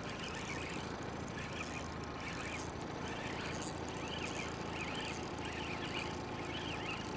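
Steady low hum with faint, high, arching chirps repeating about twice a second from a couple of seconds in.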